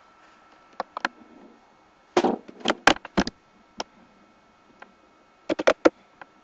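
Sharp, close taps and clicks in quick clusters of three to five, the densest a little after two seconds in and another near the end, over a faint steady hum.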